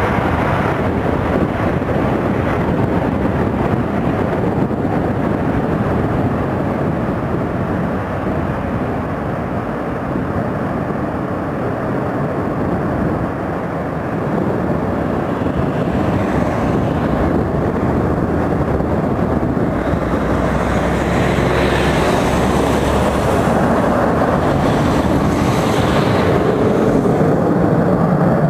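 Vickers VC10's four rear-mounted Rolls-Royce Conway jet engines at take-off power through the take-off run and climb-out, a steady jet rumble that grows louder and hissier from about halfway through.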